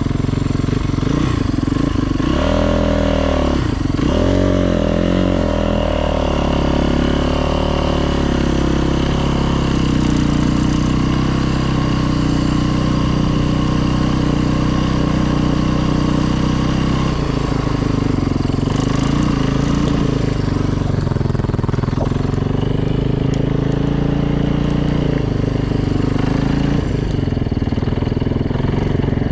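Yamaha YZ450F dirt bike's freshly rebuilt single-cylinder four-stroke engine being ridden: the revs rise and fall a few times about two to six seconds in, then it runs fairly steadily at low revs, with small changes in pitch later on.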